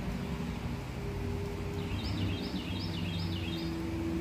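A deep, eerie drone of unknown origin: several low held tones that shift in pitch now and then, with a metallic, trumpet-like quality. About two seconds in, a bird calls five quick notes.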